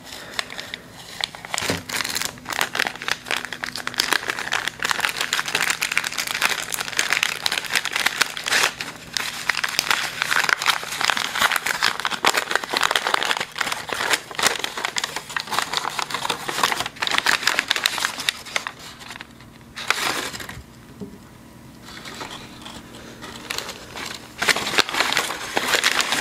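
Brown kraft and white packing paper crinkling and crumpling as items are unwrapped by hand: dense, crackly rustling that eases into a couple of quieter stretches in the last third.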